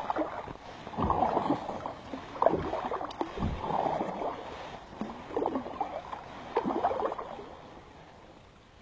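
Kayak paddle strokes on alternating sides: the double-bladed paddle dips and pulls through the water with a splashing swish about once a second, about six strokes, with a couple of low knocks, before the paddling eases off near the end.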